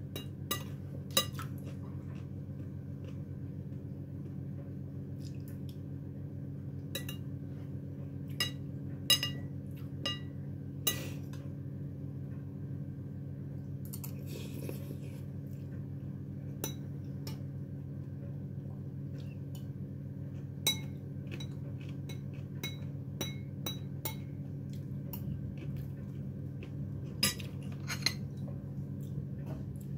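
Cutlery clinking against a plate or dish now and then, in about a dozen and a half separate clicks, with a short scrape about halfway through. Under it runs a steady low hum.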